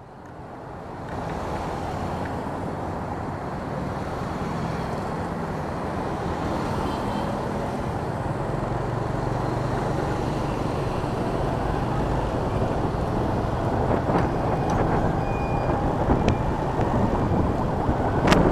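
Motorbike ride through city traffic picked up by an action camera's built-in microphone: steady engine, road and wind noise that fades in at the start and swells slowly. A couple of sharp clicks near the end.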